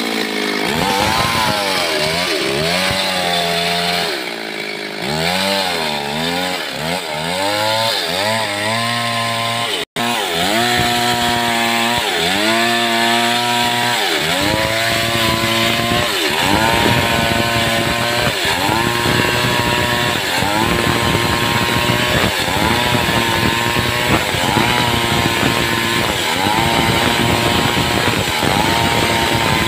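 Stihl chainsaw ripping lengthwise along the grain of a log, its engine pitch rising and sagging over and over as the chain bites and frees. The swings are wide at first and settle into steadier surges about every two seconds, with a momentary break about ten seconds in.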